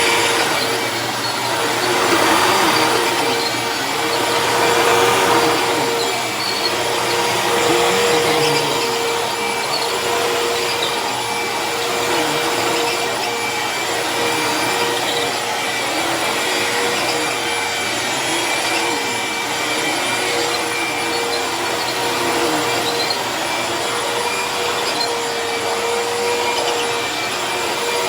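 Hoover Tempo bagless upright vacuum cleaner running loud, a steady motor whine with a strong single tone. Its loudness swells and eases every two to three seconds over the first ten seconds or so, then holds level.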